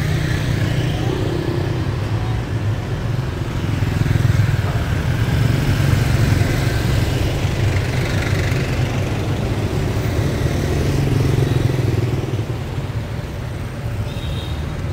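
Motorbike traffic on a street: small engines running and tyres on the road, a steady low rumble that swells and fades as bikes pass.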